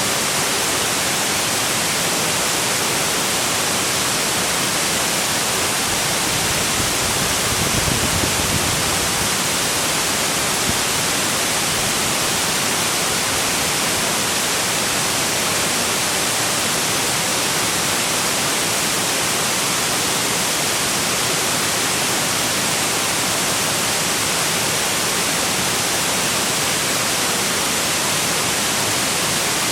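Waterfall rushing: a steady, loud wash of falling water, with a brief low rumble about eight seconds in.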